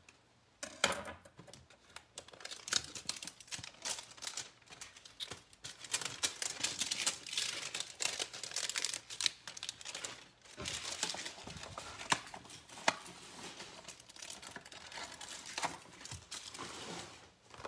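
A 2019 Donruss hanger box of baseball cards being torn open and emptied: paper and cardboard tearing, packaging crinkling and cards rustling, with scattered sharp clicks.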